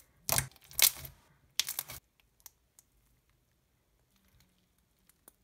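Clear slime with foam beads being pressed and squeezed by fingers: three short, crisp squishes in the first two seconds, then only a few faint clicks.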